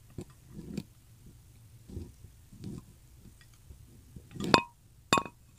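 Wooden chopsticks stirring noodles in a ceramic pot: a few soft, quiet handling sounds, then two sharp ringing clinks about half a second apart near the end as the chopsticks knock against the bowl.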